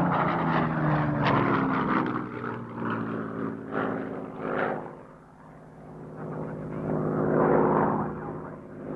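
Hawker Hurricane's Rolls-Royce Merlin V12 engine running as the fighter flies past, its pitch falling as it passes in the first couple of seconds. The engine fades about five seconds in and swells loud again near the end as the plane comes round.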